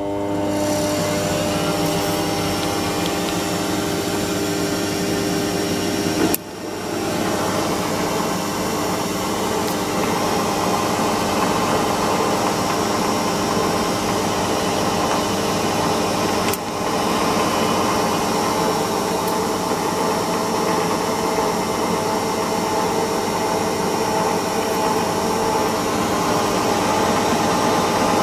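ELMAG Superturn 250 x 550 variable-speed table lathe running under power: a steady machine hum with several held whining tones. The sound dips sharply for a moment about six seconds in and again about sixteen seconds in.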